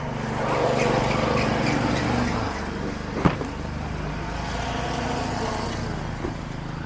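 A motor vehicle engine running with a steady low hum, with one sharp click about three seconds in.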